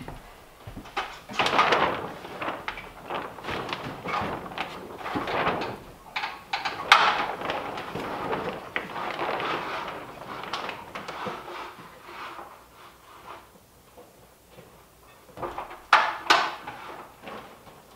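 Plastic sheeting rustling and crinkling as someone pushes through a framed wall opening, mixed with shuffling footsteps and knocks on the wood framing. There is a sharp knock about seven seconds in and a few more knocks near the end.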